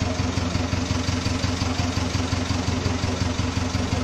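An engine idling steadily, with a low, fast, even pulse.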